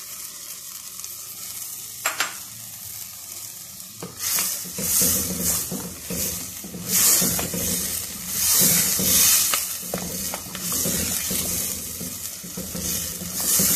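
Mutton and ginger-garlic paste frying in a clay cooking pot, stirred with a wooden spoon. The sizzle is low for the first few seconds, with a single click about two seconds in. From about four seconds in it swells and falls with each scraping stir.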